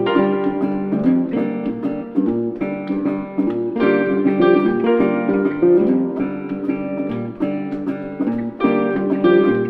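Instrumental background music: a guitar-like plucked string instrument playing a melody over chords, with a steady rhythm of note attacks.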